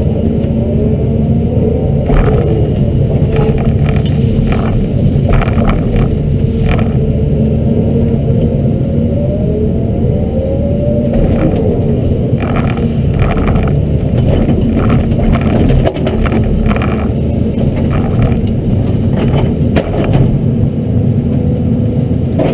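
Hyundai R210 LC-7 excavator's diesel engine working under load, with a hydraulic whine that rises and falls as the boom and rake move. Frequent short cracks and knocks come through as the rake and thumb work the willow brush.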